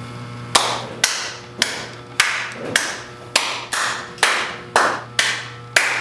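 One person clapping slowly, about eleven claps roughly half a second apart.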